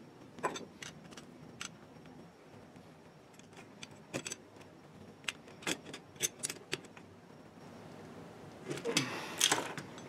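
Light metal clicks and clinks of hand tools: an adjustable wrench and a combination wrench knocking against the metal body and a threaded fitting of an air compressor pressure switch while the Teflon-taped fitting is tightened. Scattered single clicks, most between about four and seven seconds in, with a quicker cluster near the end.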